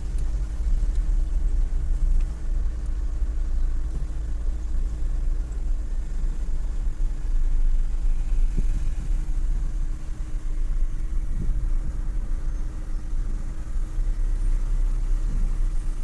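Car engine running with a steady low rumble, heard from inside the cabin while the car waits and edges slowly forward in a queue.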